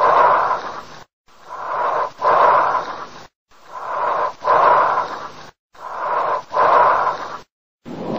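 Recorded breath sounds, one breath cycle repeated four times with short silent gaps between: each is a breath in, a brief pause, then a somewhat louder breath out, all with a hissing, airy quality. Near the end a different breath-sound recording begins, with faint steady tones running through it.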